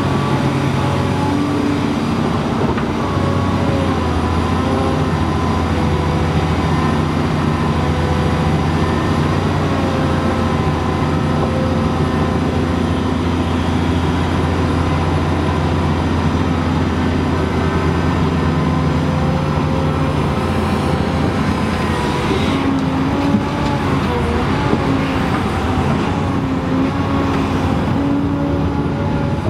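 Komatsu PC800LC hydraulic excavator working through a loading cycle, its diesel engine running steadily under load, the note shifting as it digs, swings and dumps into an articulated dump truck. A couple of sharp knocks come about three-quarters of the way through.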